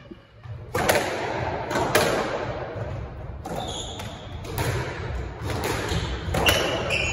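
A rally on a squash court: about a dozen sharp cracks and thuds as the ball is struck by the rackets and hits the walls and floor, each ringing in the hall, with a few short high squeaks from shoes on the wooden floor.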